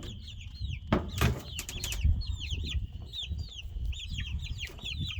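A group of baby chicks peeping: many short, falling chirps, overlapping and continuous. A few knocks come about a second in, over a low rumble.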